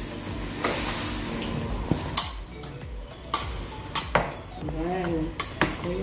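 A utensil stirring chopped strawberries in a non-stick saucepan on a gas hob, knocking against the pan about seven times, with a light sizzle during the first two seconds as the fruit starts to cook for jam.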